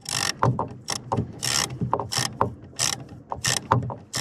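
Ratchet with a long hex-key (Allen) bit clicking in repeated back-strokes while undoing the rear mounting bolts of an outboard's trim/tilt electric motor.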